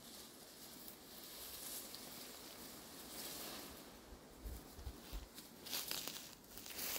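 Faint rustling and crackling of dry vegetation being handled, with a louder cluster of crackles near the end.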